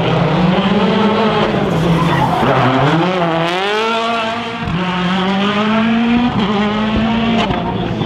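Citroën DS3 WRC's turbocharged four-cylinder rally engine revving hard through a corner, its pitch rising and falling several times with sudden drops at gear changes, as the tyres skid on the tarmac.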